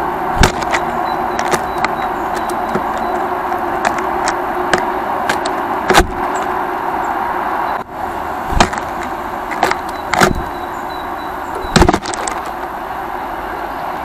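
Steady outdoor background noise of a built-up area, with several sharp knocks scattered through it.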